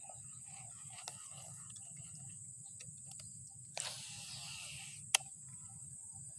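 Outdoor ambience with a steady high insect buzz. A brief rush of noise comes about four seconds in, and a single sharp click about a second later.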